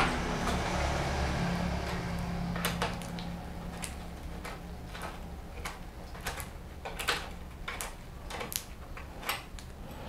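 Scattered small clicks and taps of metal and plastic as a bicycle rear derailleur and its shift cable are handled and taken off the frame, over a faint low hum for the first couple of seconds.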